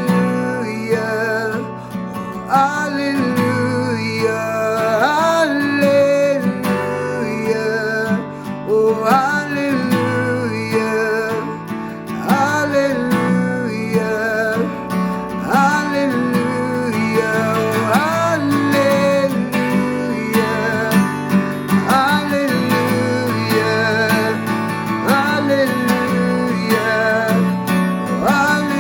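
Worship band playing an instrumental passage with guitar to the fore, a gliding, wavering lead melody over a steady bass line.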